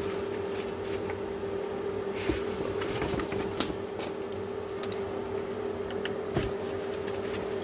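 A steady machine hum, with scattered light rustles and clicks as a PAR meter sensor and its cable are moved over the crinkly reflective mylar floor of a grow tent.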